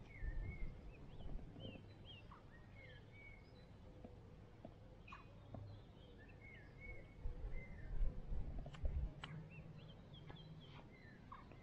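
Small birds calling with short chirping whistles, repeated throughout, over low rumbling thumps near the start and again in the later part, with a few sharp clicks.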